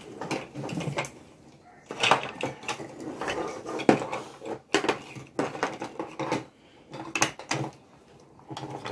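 Plastic Duplo bricks clattering and clicking against each other and the tabletop as children handle them and press them together, in irregular knocks.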